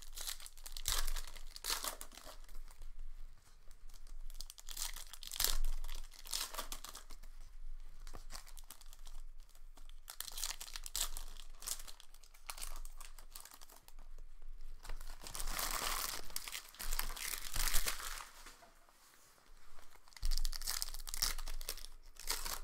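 Trading-card pack wrappers crinkling and tearing open as the packs are ripped by hand, in irregular bursts with a short lull near the end.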